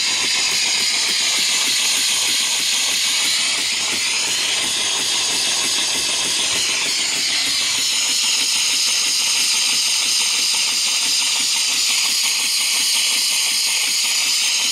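Small vertical single-cylinder steam engine running on steam from a wood-fired boiler on its first run, giving off a steady, loud hiss of steam.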